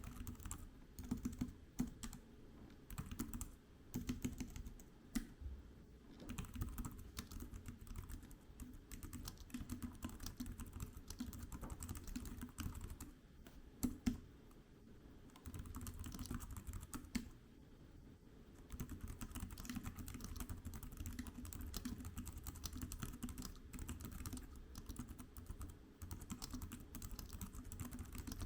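Typing on the keys of a GreenLaw keyboard case for the iPad mini 6: fast, continuous key clicks, with a couple of brief pauses about halfway through.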